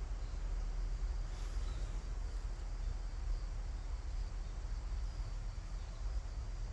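Native Korean honeybees buzzing faintly around their hive, over a steady low rumble of wind or handling noise on the microphone.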